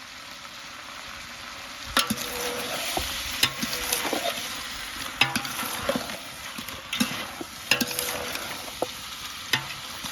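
Duck meat frying in masala with a steady sizzle, stirred with a ladle that scrapes and knocks against the pot again and again from about two seconds in.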